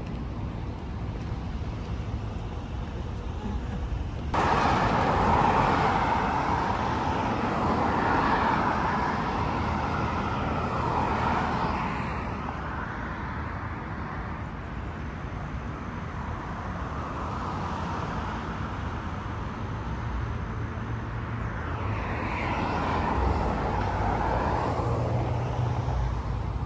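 City street traffic: a steady hum of cars, growing sharply louder about four seconds in, with vehicles passing in swells that rise and fade.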